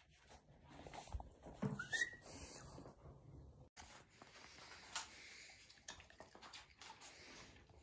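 Dog giving a short rising whine, about two seconds in, with faint clicks and shuffling around it.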